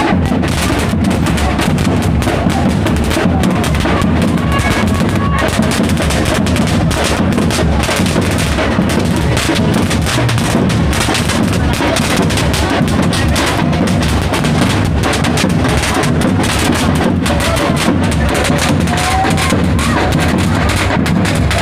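Ati-atihan street drum band beating a continuous, driving rhythm on large metal-shelled bass and snare drums.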